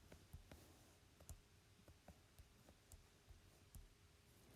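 Near silence with a string of faint, irregular clicks of buttons or keys being pressed, as a division is entered for calculation.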